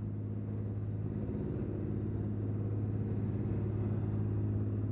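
A small boat's engine running steadily under way, a low, even drone.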